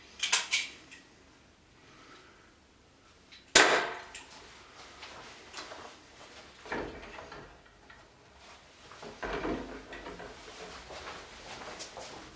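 A few sharp clicks as the airgun is handled and readied, then a single loud airgun shot about three and a half seconds in, echoing briefly in a small room. Quieter knocks and handling noises follow.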